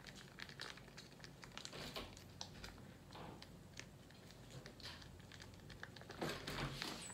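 Plastic sauce packet crinkling softly in the hands as it is squeezed and wrung out, with faint scattered crackles and a slightly louder rustle near the end.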